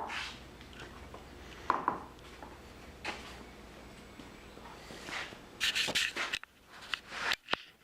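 Faint rubbing and handling sounds, with a few short hissing bursts past the middle and some sharp clicks near the end.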